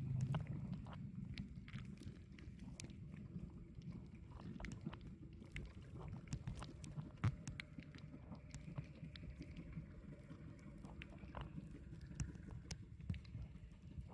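Muffled low rumble of water and a boat, as picked up by a camera held underwater, with many sharp clicks scattered irregularly throughout.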